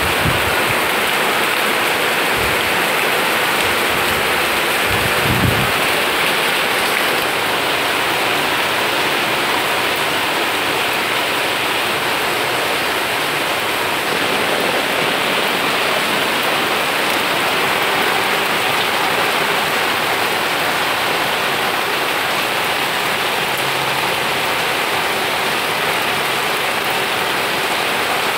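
Heavy rain falling on garden foliage, a loud steady hiss. A brief low thump about five seconds in.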